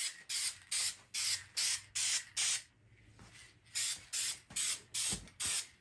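Aerosol can of Dupli-Color Perfect Match white spray paint hissing in short, rapid bursts, about four a second: light misting passes for a first coat. The bursts stop for about a second near the middle, then start again.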